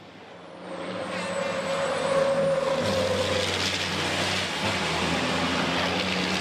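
Two MAN race trucks' diesel engines running hard at racing speed as they pass close by. The sound swells over the first two seconds and then stays loud and steady.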